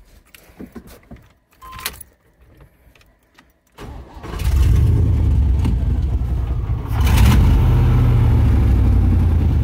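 Rebuilt 350 small-block Chevy V8 cranked and started about four seconds in, catching almost at once and settling into a loud, steady run that gets louder about seven seconds in. Before it, a few faint clicks and a short beep.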